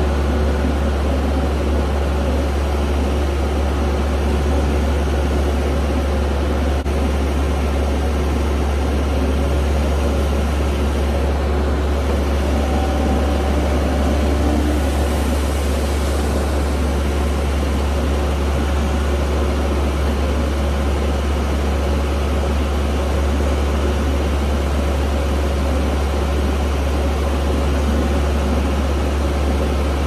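Concrete mixer truck and concrete pump running steadily, a constant low diesel drone, as the mixer discharges grout down its chute into the pump's hopper.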